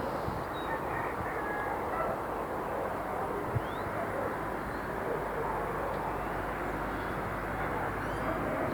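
City ambience: a steady hum of traffic with a few faint, short bird chirps over it and one sharp click about three and a half seconds in.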